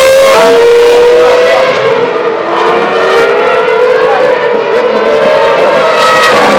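Racing car engines at high revs, a loud high-pitched whine that glides and dips in pitch as the cars pass along the track, a little quieter about two and a half seconds in.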